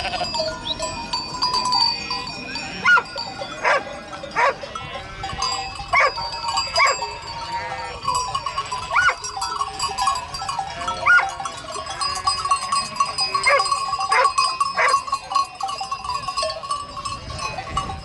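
A large flock of sheep bleating, many separate calls overlapping at irregular intervals, with the flock's neck bells clinking and ringing underneath.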